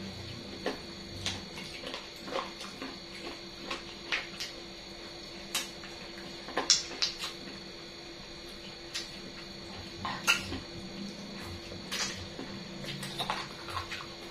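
Close-miked eating sounds of chicken feet being chewed: irregular sharp clicks, smacks and clinks, the loudest about 7 and 10 seconds in.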